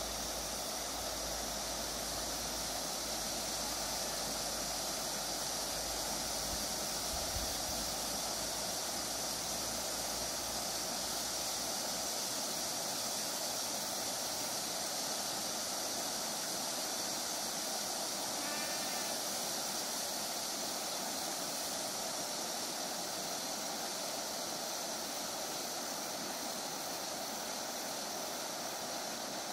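Steady rush of flowing stream water, an even hiss that does not change.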